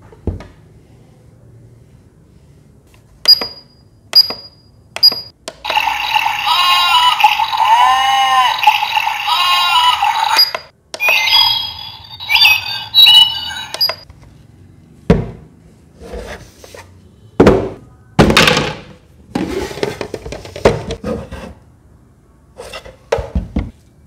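The aquarium's clock base gives three short electronic button beeps, then its built-in speaker plays a loud sound clip of repeated rising-and-falling chirping tones for about five seconds, one of its preset nature-sound modes. A second, shorter tonal clip follows. Over the last ten seconds come scattered plastic knocks and rubs as the clear plastic tank is handled on its base.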